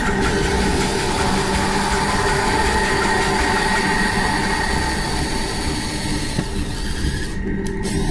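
Ryobi cordless drill running steadily under load, its bit boring into square aluminium tubing, a humming motor tone over grinding noise. The sound thins out about seven seconds in.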